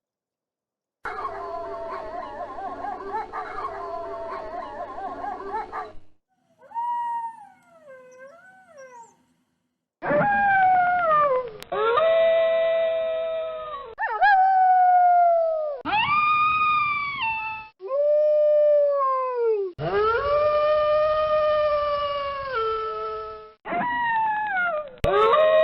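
Wolves howling. About a second in, a chorus of overlapping howls starts, followed by a few wavering yips. Then comes a run of about eight long single howls, one after another, each sliding down in pitch and then holding.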